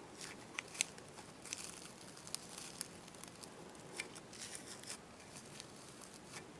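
Faint rustling and scattered small ticks of gel-spun thread being wrapped and pulled tight over clumps of deer hair on a hook in a fly-tying vise.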